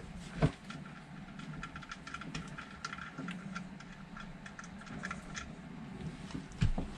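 A spanner and hands working the cap nut on the oil drain pump hose of a Nanni diesel engine: light, irregular metallic clicking, with a knock about half a second in and another near the end.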